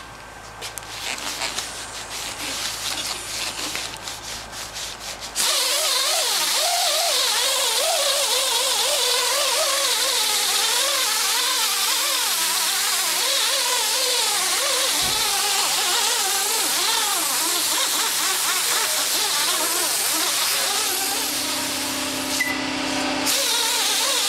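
Foam polishing pad with polishing compound buffing a yellowed plastic headlamp lens to take off the haze. After a few seconds of light clicks and handling, a loud steady rubbing noise with a wavering pitch starts suddenly about five seconds in, and it stops shortly before the end.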